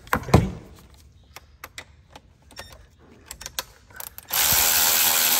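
A few scattered clicks as a cordless electric ratchet is set onto a bolt. About four seconds in, the ratchet's motor starts and runs steadily in reverse, backing the bolt out.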